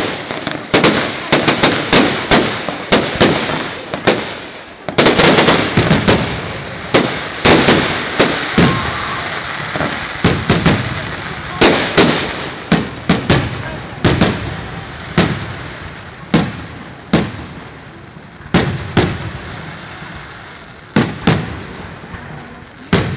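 Fireworks display: a rapid, irregular series of sharp bangs from bursting shells, with a continuous crackle and rumble between them. The bangs are densest about five seconds in and thin out toward the end.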